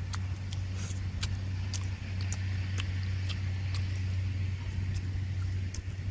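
A man chewing and smacking his lips on sticky caramelized-sugar sweet potato, making irregular sharp wet clicks, over a steady low hum.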